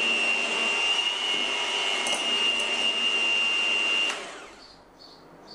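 Electric hand mixer running steadily with a high whine, its beaters whipping egg batter in a glass bowl. About four seconds in it is switched off and the motor winds down within half a second.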